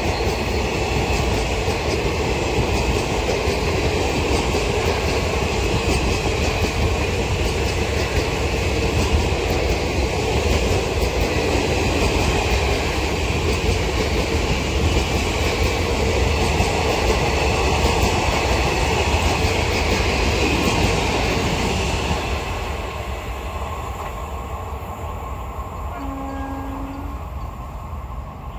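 Indian Railways train passing at speed, its wheels and coaches rumbling steadily on the rails, then fading away after about 22 seconds. A short horn note sounds near the end.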